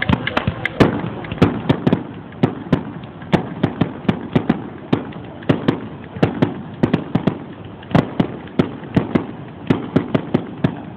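Fireworks display: an irregular run of sharp bangs and cracks, about two to four a second.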